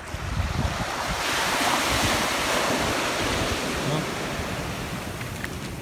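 Shallow surf washing up the sand at the water's edge: a hiss that swells about a second in and slowly fades, with wind rumbling on the microphone.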